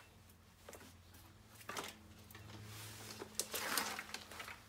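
Rubber garden hose being uncoiled and handled: a few separate scuffs and rustles, then a longer stretch of rubbing and scraping near the end, over a faint steady low hum.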